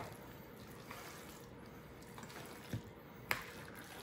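A table knife cutting down through a chunky shredded-chicken filling in a mixing bowl: a few soft, scattered taps and scrapes against the bowl, the sharpest a little after three seconds in.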